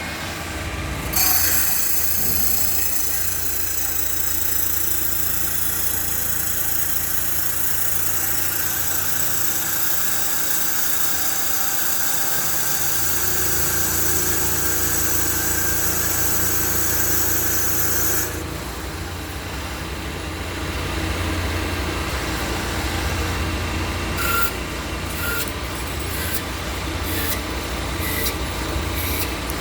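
Automatic CNC bangle cutting machine running. Its motor hums low and steady. About a second in, a high-pitched, shrill cutting noise starts and holds, then stops suddenly about two-thirds of the way through, leaving the machine running with scattered clicks.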